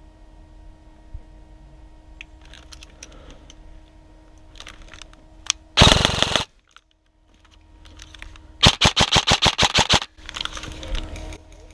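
Airsoft gun firing close by: a short dense burst about six seconds in, then a rapid string of about a dozen shots just before the ten-second mark, with fainter shots and clicks around them.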